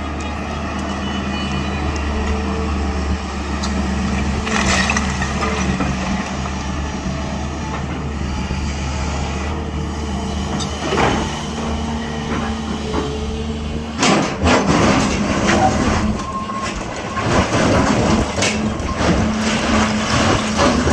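Long-boom crawler excavator at work, its diesel engine running as a steady low hum. About two-thirds of the way through, the sound changes abruptly to a run of knocks and clatter.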